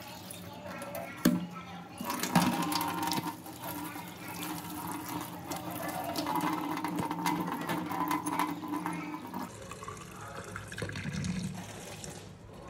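A sharp knock about a second in, then tap water running and splashing into a stainless steel sink over a glass jar and plant roots; the sound changes and gets quieter near the end.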